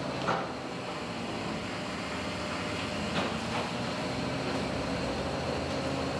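Steady drone of a longliner's machinery on the enclosed work deck, with a few sharp knocks: one just after the start and two about three seconds in.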